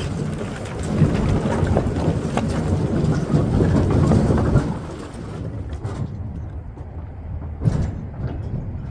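Dry split maple firewood tumbling out of a tipped dump trailer in a dense, clattering rush of knocking logs. About halfway through the pour dies down to a few scattered knocks as the last pieces settle.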